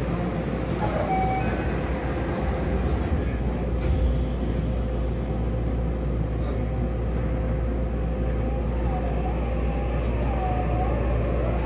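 Interior running sound of a Yokohama Municipal Subway 3000R-series train with Mitsubishi IGBT-VVVF traction equipment, heard inside the car in a tunnel: a steady rumble of wheels on rail with a steady hum.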